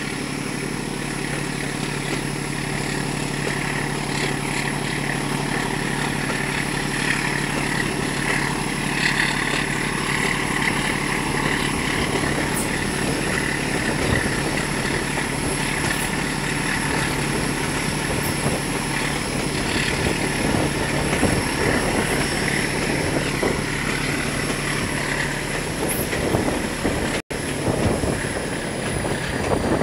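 A train in motion heard from an open coach window: the Class 14 diesel-hydraulic locomotive's Paxman Ventura engine running steadily under power ahead, over wheels on the rails and wind. The sound drops out for an instant near the end.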